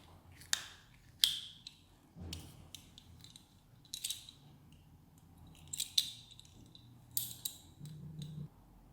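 Metal automatic belt buckle being handled as it is taken off the strap: its flap clicks open and shut and the buckle scrapes free, about six sharp clicks with a brief metallic ring, spaced a second or so apart.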